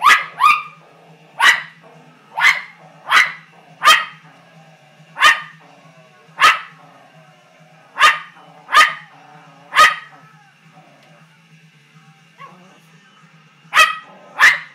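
A poodle barking in sharp single barks, about one a second, with a pause of a few seconds before two last barks. It is barking at a bull on the television.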